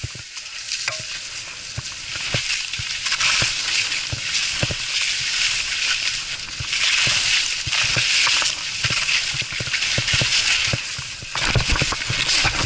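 Skis hissing and scraping over soft snow during a descent, with scattered knocks and bumps on the action camera; it is heaviest about eleven seconds in.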